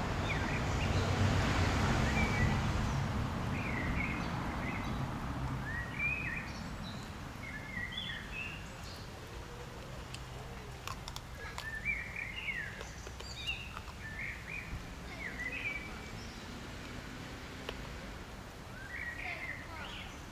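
Small birds chirping, short high calls coming every second or so, over a steady outdoor background hum that swells and fades in the first few seconds.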